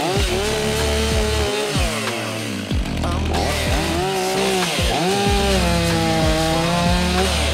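Petrol chainsaw cutting into a tree trunk, its engine speed repeatedly dropping and climbing back as the chain bites into the wood and frees up again.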